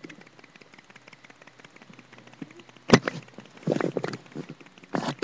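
A single sharp click about three seconds in, followed by a few softer knocks and rustles, over a faint background hiss.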